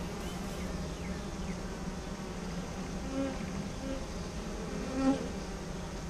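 Steady, dense hum of a freshly hived honeybee swarm massed on the hive's top bars. Single bees buzz louder as they pass close, about three seconds in and again around five seconds.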